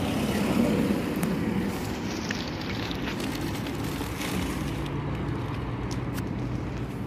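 Steady outdoor background noise with a low traffic rumble. A faint engine hum comes in about halfway through, and there are a few light clicks.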